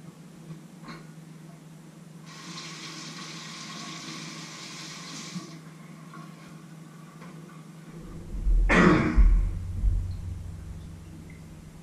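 Kitchen tap running for about three seconds, then a loud cough about nine seconds in, over a steady low hum.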